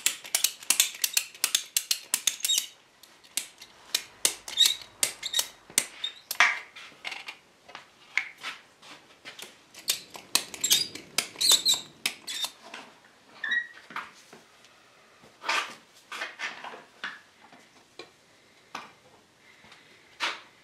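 A ratchet strap being tightened, a quick run of metallic clicks, followed by scattered clicks and knocks as spring clamps and the wooden chair are handled.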